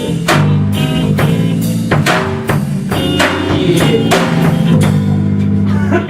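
Instrumental hip-hop beat with no vocals: drum kit hits about twice a second over a steady bass line.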